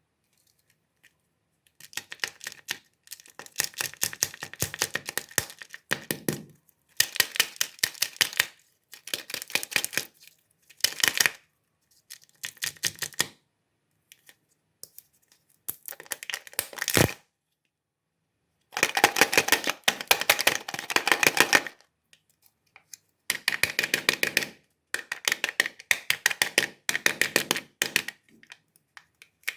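Chocolate-egg wrappers crinkling and tearing as the eggs are unwrapped, in bursts of crackling a second or two long with short silent pauses between, and one sharper click about seventeen seconds in.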